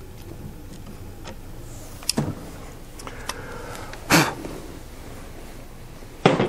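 Small metal-and-plastic clicks and knocks of a nut driver being handled and taken off a 3D printer's hotend after tightening the nozzle, two louder knocks about two and four seconds in among a few faint ticks, over a steady low hum.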